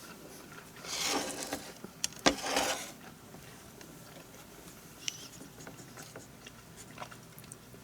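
Faint handling of a dinner plate and utensils: two short scrapes, one about a second in and one about two and a half seconds in, with a sharp click between them and a few light ticks later.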